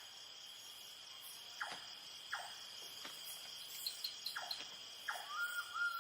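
Night-time tropical rainforest insect chorus: crickets trilling steadily and high, with four short downward-sliding calls from another animal and a wavering whistle-like tone starting near the end.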